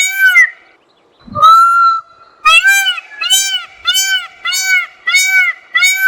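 Peacock giving a rapid run of short honking calls, about two a second. About a second in, the run breaks for one longer, flatter call, then the short calls resume.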